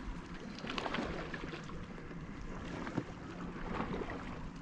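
Wind and small waves lapping on a rocky lakeshore, a steady soft wash with a few faint clicks.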